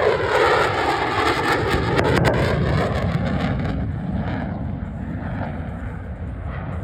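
F-16 Viper fighter jet's engine noise as the jet flies past, a loud rushing roar with a shifting sweep in pitch that gradually fades as it pulls away.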